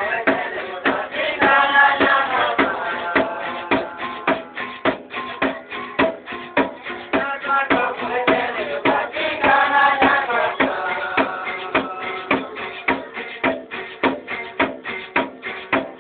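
Folk music with a quick, steady percussive beat of about four strikes a second. A melody line swells up near two seconds in and again near nine seconds.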